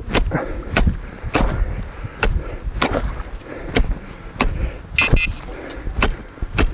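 An ice chisel being driven into ice and slush in a fishing hole: about one and a half sharp knocks a second, with a short high-pitched ring about five seconds in.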